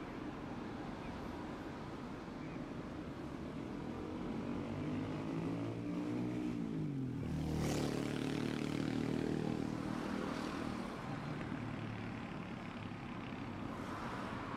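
A motor vehicle passing close by in street traffic. Its engine note drops in pitch as it goes past, about six to seven seconds in, is loudest just after, then fades back into the traffic noise.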